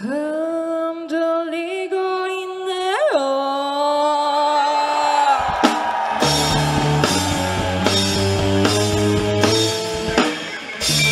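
Live rock band performance: a singer holds a long wavering note that slides up about three seconds in. From about six seconds the full band comes in, with steady drum hits, bass and electric guitars.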